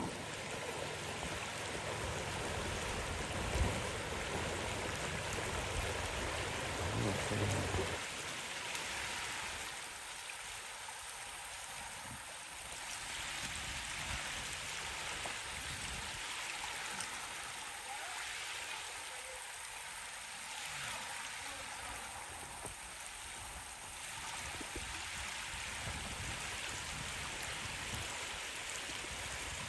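River water flowing steadily, with a low rumble underneath for the first eight seconds and one sharp knock about three and a half seconds in.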